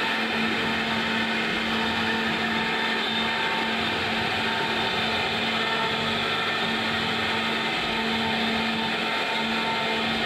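CNC router spindle running steadily as it cuts a door panel, a continuous high whine with a steady hum beneath it.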